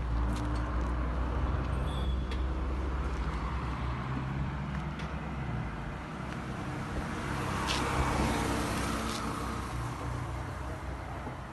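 A car's engine running at low speed with a steady low hum that eases off about halfway through. A broad rush of noise swells and fades about two-thirds of the way in.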